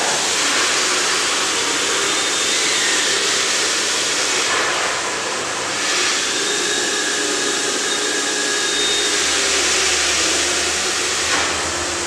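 Handheld hair dryer running steadily at full blast, aimed close against a stretched sheet of flex paper, a hiss of rushing air with a thin whine from its fan.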